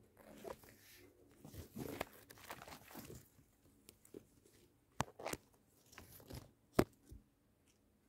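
Close rustling and crackling handling noise among a chilli plant's leaves and stems. It is followed by a few sharp clicks: one about five seconds in, another just after, and the loudest near seven seconds.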